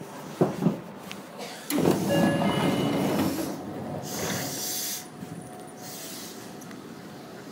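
Seibu 9000 series electric train: two sharp clicks, then a loud rush of noise with a few faint steady tones for about two seconds, followed by a short high air hiss about four seconds in, before settling to a quieter steady rumble.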